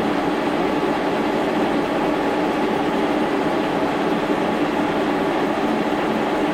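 Steady mechanical hum of running shop machinery, even and unbroken, with a few constant tones in it.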